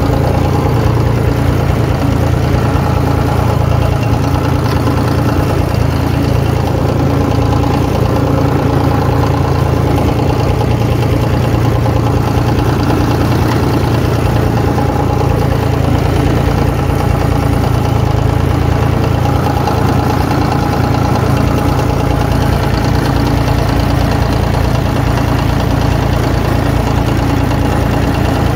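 Ford 1910 compact tractor's three-cylinder diesel engine running steadily as the tractor drives, heard from the driver's seat: a loud, even, low-pitched engine sound that holds constant throughout.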